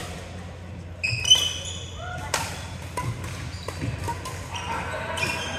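Badminton rally: sharp pops of rackets striking the shuttlecock and sneakers squeaking on the court floor, the squeaks loudest about a second in. Voices carry from around the hall near the end.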